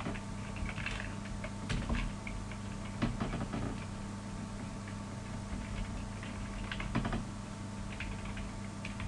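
Computer keyboard typing: irregular keystroke clicks in short runs, over a steady low hum.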